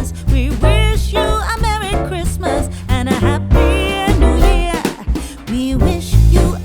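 Background music: a sung melody over a heavy, stepping bass line.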